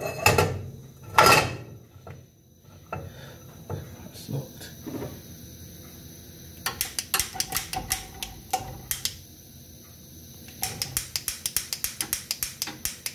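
Gas cooker burner's spark igniter clicking rapidly, about five or six clicks a second, in two runs as the burner is lit.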